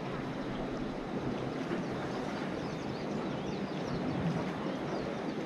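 Steady outdoor harbour ambience: a low, even rumble of wind and distant motor noise, with faint short high chirps scattered through it.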